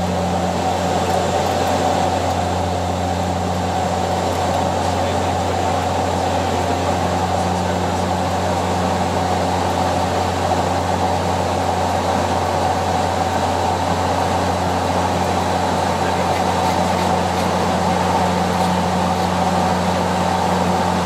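Steady drone of the Bombardier Dash 8 Q400's turboprop engines and propellers as heard inside the flight deck: an unbroken low hum under an even hiss of rushing air.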